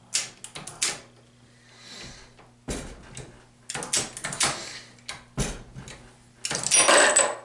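Hornady Lock-N-Load progressive reloading press being worked by hand: irregular metallic clicks and clunks from the handle strokes and the indexing shell plate as .223 Remington cartridges are loaded. Near the end comes a longer, louder metallic clatter with a faint ringing.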